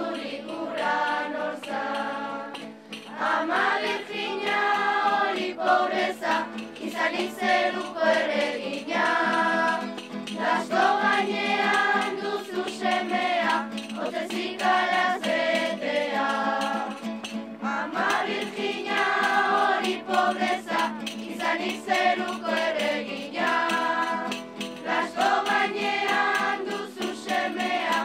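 A group of children, joined by some adult voices, singing a Basque Christmas carol together in phrases with short breaths between them, with a guitar accompanying.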